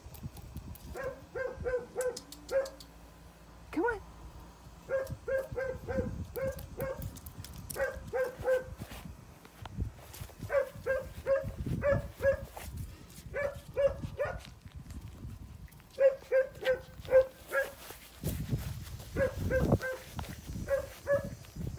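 A dog barking in quick bursts of three to five short barks, every second or two, with low rumbling noise at times.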